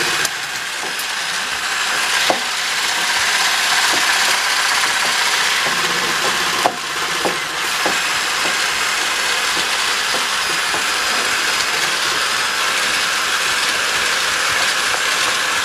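Electric hand mixer running steadily, beating eggs toward stiff peaks, with a few light clicks of a spatula against a glass bowl.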